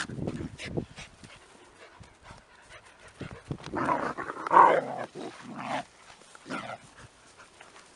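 Two puppies play-fighting, giving short barks and yelps in a few bursts. The loudest comes about four and a half seconds in.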